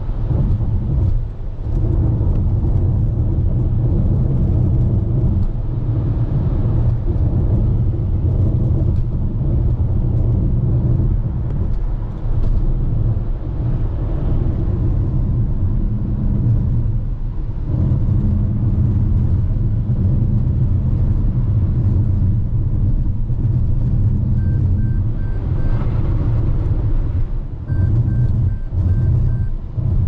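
Steady low rumble of tyres and engine heard from inside a car's cabin while cruising at highway speed.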